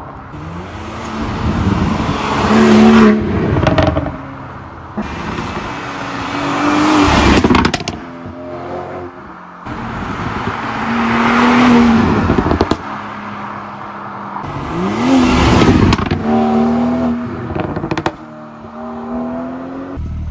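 BMW 440i's turbocharged 3.0-litre inline-six accelerating hard past, about four times in a row: each time the engine note rises to a loud peak as the car passes, then fades.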